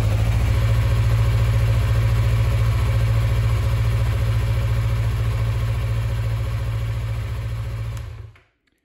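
2020 Yamaha MT-03's parallel-twin engine idling steadily in neutral, then cut off with the kill switch about eight seconds in.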